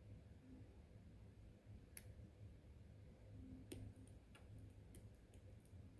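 Faint, scattered metallic clicks of lock picks working the pins inside an ASSA 6000 lock cylinder: single clicks about two seconds and nearly four seconds in, then a run of small ticks near the end.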